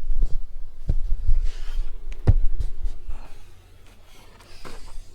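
Handling noise from a GoPro camera being held and moved: low rumble and rubbing on the microphone with a few sharp knocks, the loudest a little past two seconds in, then a short quieter stretch near the end.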